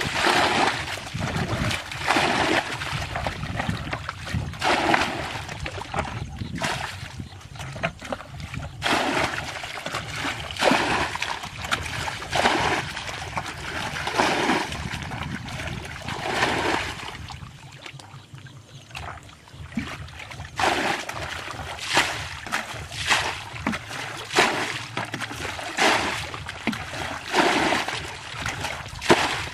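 Plastic bucket scooping muddy water from a shallow ditch and flinging it out, splashing again and again about every one to two seconds, with a short lull partway through: the ditch is being bailed dry by hand to catch the fish in it.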